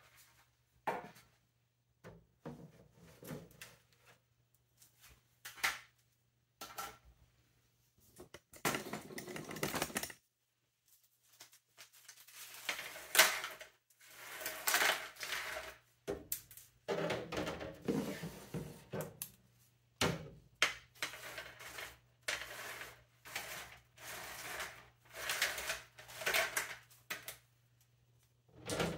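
Pieces of hard dried beef jerky clattering and scraping onto a metal baking sheet as they are tipped and slid off plastic dehydrator trays, with the trays knocking and sliding as they are handled: an irregular run of clicks, taps and scrapes.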